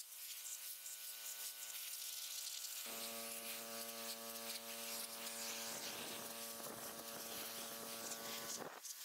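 Pressure washer running with a steady hum and the hiss of its water jet on a concrete curb. About three seconds in the sound grows fuller and deeper, and it drops back suddenly near the end as the spraying stops.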